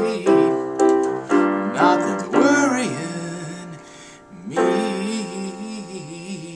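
Electronic keyboard playing piano-voiced closing chords, about two a second at first and fading. A man's voice holds notes with vibrato over them. A final chord is struck about four and a half seconds in and left to ring with a held sung note.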